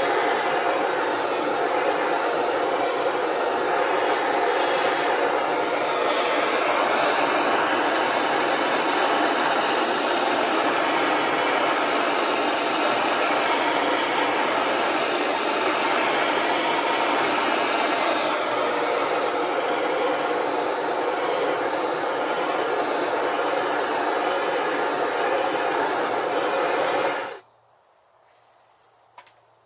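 Handheld gas blowtorch burning with a steady rushing hiss as its flame heats the aluminium fork bottom to free the threads so the chrome stanchion can be unscrewed. The flame cuts off abruptly near the end.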